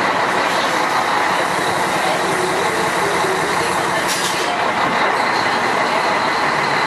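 Scania F113 bus's diesel engine running steadily under way. A short hiss comes about four seconds in.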